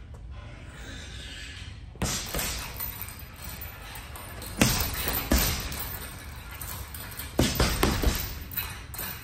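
Boxing gloves striking a hanging heavy bag: single punches landing a couple of times, then a quick flurry of blows near the end, each thud echoing in a large hall.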